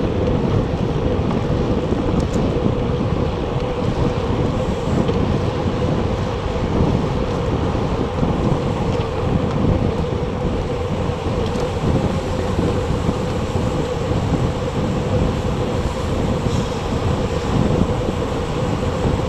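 Steady wind rush on a Garmin VIRB action camera's microphone while riding a recumbent bicycle at speed, with a constant hum underneath.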